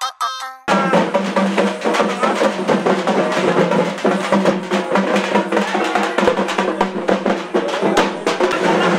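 A short chiming jingle ends within the first second. Loud, drum-heavy music with a steady beat follows.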